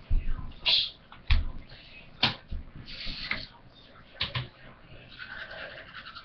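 A handful of knocks and clicks, with a short rustle about three seconds in: small objects picked up and set down at a bathroom sink.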